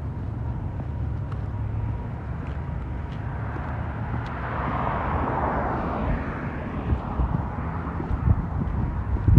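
Outdoor street sound while walking: a low, uneven wind rumble on the phone's microphone, with a passing vehicle swelling up and fading away around the middle.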